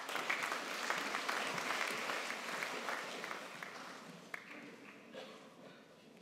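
Audience applauding, strongest in the first couple of seconds and dying away toward the end.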